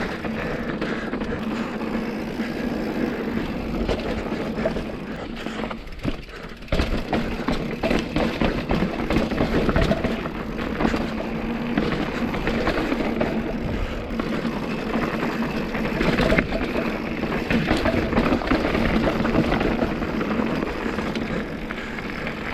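Mountain bike riding over rocky trail: continuous tyre noise with many quick knocks and rattles from the bike. A brief lull about six seconds in, then louder from about seven seconds on.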